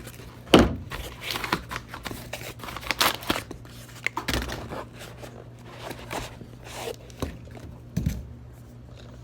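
Packaging being handled and opened by hand: irregular rustling, crinkling and tearing, with three louder knocks, one about half a second in, one midway and one near the end.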